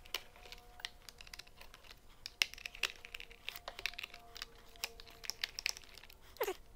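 A screwdriver backing small screws out of a plastic instrument-cluster housing: a run of small, irregular clicks and ticks of the driver tip, the screws and the plastic case being handled.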